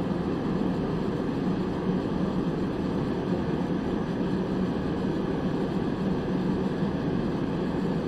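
Propane forced-air heater running: its fan and burner make a steady, even rushing noise.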